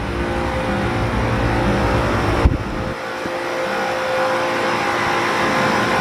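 Three 1990 Carrier TECH 2000 central air conditioner condensers running together, their three-phase compressors and condenser fans humming in several steady tones at once. The compressors sound original. A knock comes about two and a half seconds in, after which the low rumble drops away while the tones go on.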